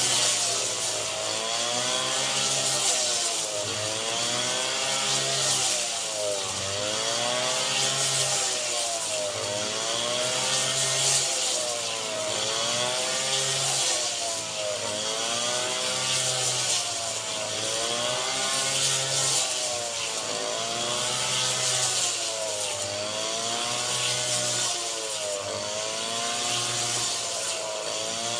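Rice harvesting machine's engine running under load, its pitch rising and falling about every two seconds, over a steady hiss.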